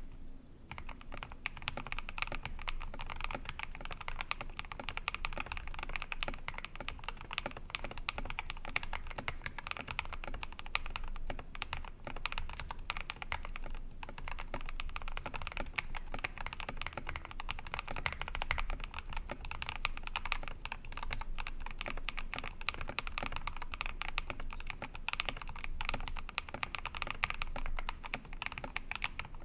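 Steady, fast typing on a mechanical keyboard fitted with PBT dye-sublimation keycaps: a dense run of key clicks, beginning about half a second in.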